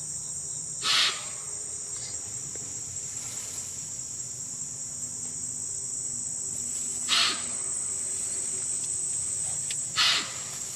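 Steady, high-pitched chorus of insects. Three brief noises break in about a second in, around seven seconds in, and near the end.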